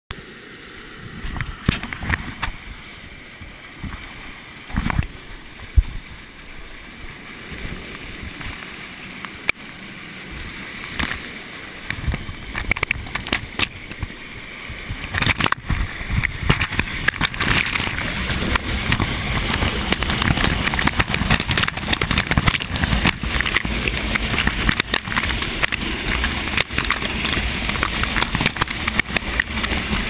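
Waterfall rushing, getting louder and steadier from about halfway through, close up to the falling water. Sharp knocks and bumps, likely from handling, during the first half.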